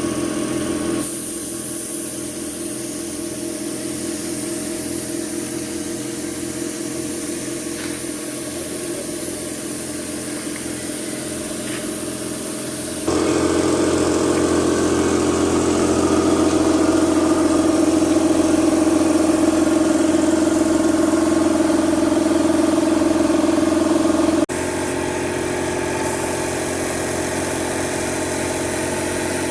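An engine running steadily at a constant speed. The sound shifts abruptly about a second in, again about thirteen seconds in, where it becomes louder and higher, and again about twenty-five seconds in.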